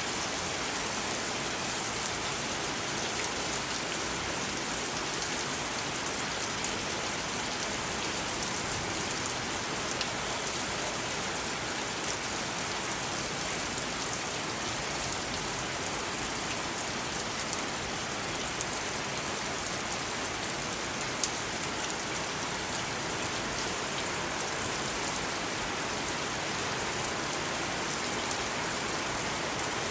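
Steady rain falling and pattering on surfaces, an even hiss with scattered individual drop ticks, one sharper tick about 21 seconds in.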